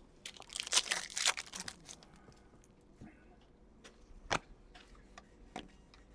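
A foil trading-card pack torn open with a crinkling rustle in the first couple of seconds, then the cards inside handled and flicked, with scattered light clicks and one sharper click a little past four seconds in.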